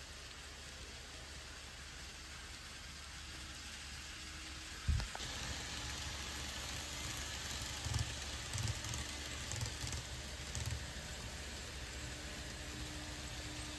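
Model trains running on the layout track: a steady hiss of small wheels rolling on rails. About five seconds in it gets louder, with a sudden low thump and a few softer thumps after it.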